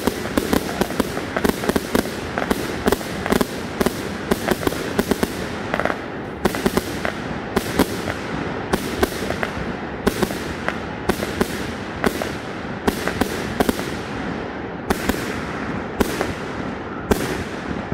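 Aerial fireworks finale: a rapid string of launches and sharp bursting reports over a continuous crackle, dense at first and thinning to about two reports a second in the second half.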